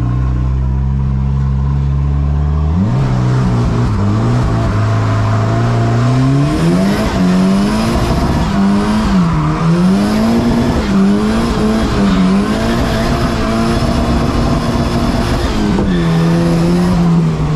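Big-turbo 450 hp Volvo wagon's engine heard from inside the cabin, cruising steadily and then pulling hard. About three seconds in the revs jump and climb, then swing up and down repeatedly before dropping near the end.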